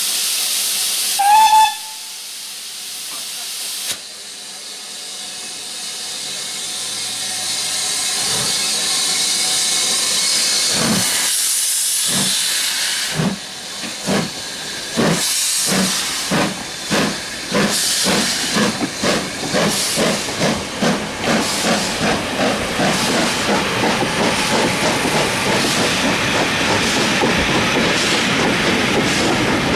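BR Standard class 4MT 2-6-4 tank steam locomotive starting away from a stand. Steam hisses from the cylinders, with a short whistle blast about a second in. From about a third of the way in, the exhaust beats start slow and quicken to about two a second as the engine gathers speed, and the coaches roll past near the end.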